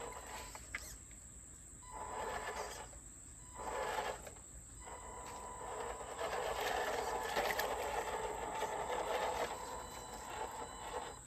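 The electric motor and gears of a radio-controlled Toyota pickup truck whine in short bursts as it crawls through shallow creek water. About halfway through, the whine settles into a longer, steadier run.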